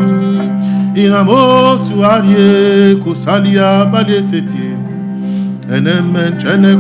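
Soft worship music: a steady, sustained instrumental drone under a man's voice singing long, gliding wordless phrases in three stretches.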